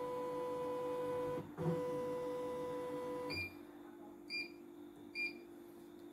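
CNY E900 computerized embroidery machine: the embroidery unit's motors give a steady whine as the carriage moves the hoop, in two runs of about a second and a half each. Then the touch screen beeps three times as it is tapped.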